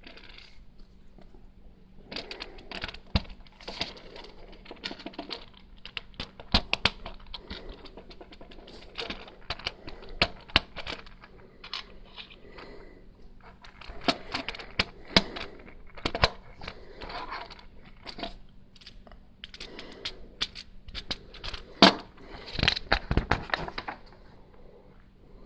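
Plastic Lego bricks being handled and rummaged through during a build: irregular sharp clicks and rattles with rustling between them, a loud cluster of clicks near the end.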